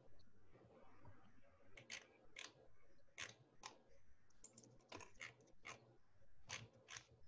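Faint, irregular clicking of computer controls, about a dozen separate clicks spread unevenly over several seconds.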